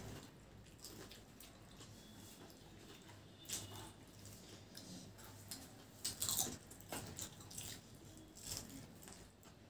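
Crisp fuchka (pani puri) shells being cracked open by hand and bitten, with chewing: scattered short crunches, the loudest about a third of the way in and around two-thirds of the way through.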